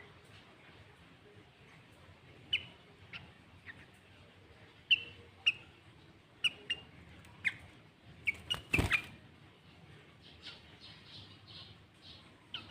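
Sooty-headed bulbul (kutilang) giving short, sharp call notes that drop quickly in pitch, about a dozen spaced irregularly, with a run of softer, higher notes near the end. A brief loud thump cuts in about nine seconds in.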